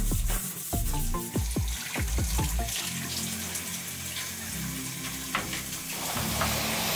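A tap running into a utility sink as a dusty vent grille is rinsed under it, over background music with plucked notes in the first few seconds.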